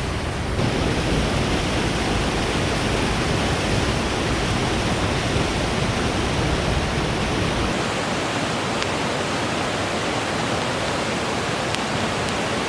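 Fast-flowing creek water rushing with a steady, even hiss. The deep part of the rumble drops away about two-thirds of the way through.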